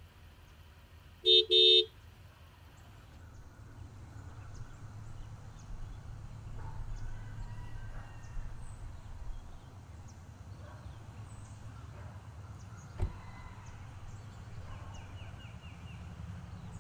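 A car's remote-lock chirp: two short electronic beeps about a second in, the loudest sound here. After it, farmyard fowl call faintly over a low steady rumble.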